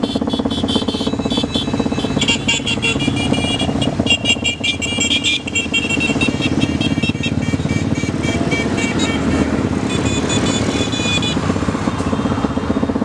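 A group of small motorcycles riding past, engines running, one after another. Bursts of short high-pitched beeps sound over the engines, stopping about eleven seconds in.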